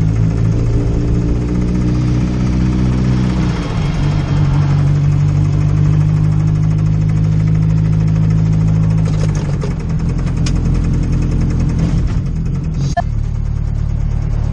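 VW Golf R32 engine running as the car is driven, a steady drone that shifts to a new pitch about three and a half seconds in and again near ten and thirteen seconds. The engine has a rod knock after blowing up on its fresh build.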